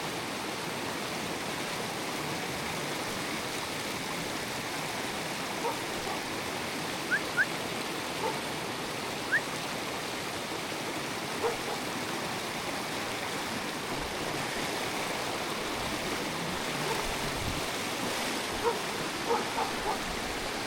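Steady rushing of a swollen, snowmelt-fed stream. A few short sharp yelps cut through it, with a quick cluster of them near the end.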